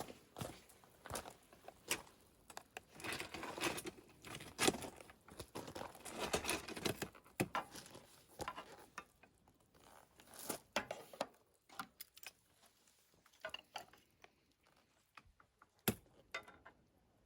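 Irregular clicks, taps and rustling of small things being handled, busy at first and sparser after about the middle.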